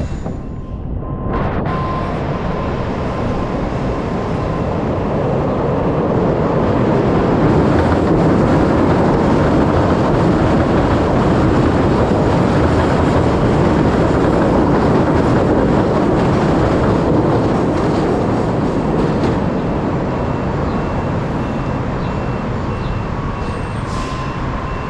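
Steady rumbling, rushing noise of travel. It builds to its loudest in the middle and eases off somewhat near the end.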